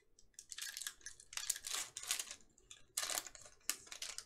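Thin foil-plastic wrapper of a trading-card pack crinkling and tearing as it is ripped open by hand, in several short bursts.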